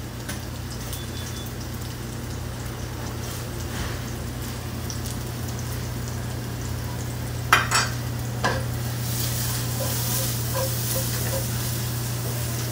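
Chopped asparagus stems sizzling in rendered guanciale fat in a frying pan, the sizzle growing louder in the second half. A few sharp metal clatters of utensil and pan come a little past halfway, over a steady low hum.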